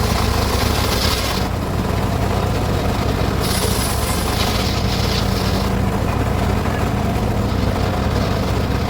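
Circular saw running steadily and cutting teak wood. A higher hiss of the blade in the cut comes during about the first second and a half, and again from about three and a half to five and a half seconds in.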